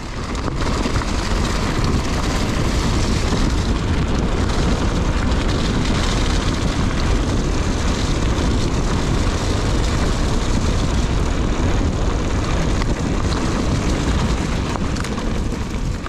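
Wind rushing over the microphone of a rider's camera on a mountain bike at speed, mixed with the rolling noise of the tyres on the trail: a loud, steady rumble that sets in suddenly and drops away near the end.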